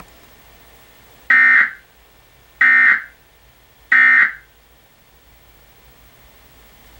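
Emergency Alert System end-of-message signal: three short, identical bursts of buzzy digital data tones about a second apart, marking the end of the nationwide test alert.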